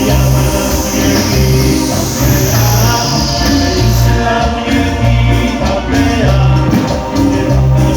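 Live Latin band music: a loud, pulsing bass line under percussion, played through a PA sound system.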